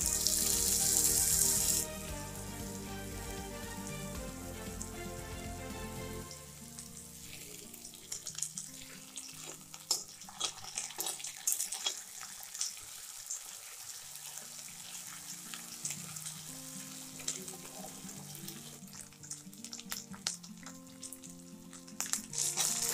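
Ginger-garlic paste and chopped chillies hitting hot mustard oil and frying onions in a kadai: a loud sizzle for about two seconds, settling to a quieter steady frying sizzle. Later a spatula stirs and scrapes the pan with scattered clicks and knocks, and the sizzle flares up again near the end.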